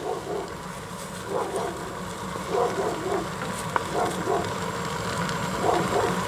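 Wooden spatulas scraping and pressing fried rice across a hot cast-iron griddle in short strokes at irregular intervals, over a steady low hum from the gas burner beneath it.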